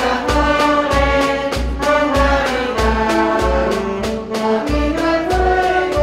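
Women's choir singing a hymn together, accompanied by clarinet, over a steady low beat about every two-thirds of a second.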